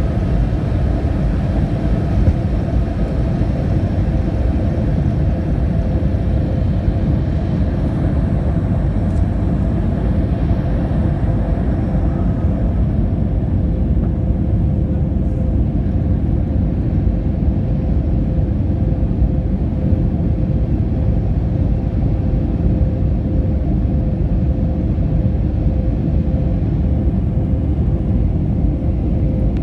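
Cabin sound of a Boeing 737-300's CFM56-3B2 turbofan engines at takeoff thrust, heard over the wing: a loud, steady rumble with a held tone, through the end of the takeoff roll and the climb-out. The higher hiss eases about twelve seconds in, once the aircraft is off the runway.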